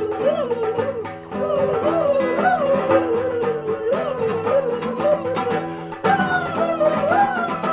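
Background music: a wavering lead melody over sustained chords and a steady beat. The track breaks off and starts again abruptly about a second in and again about six seconds in.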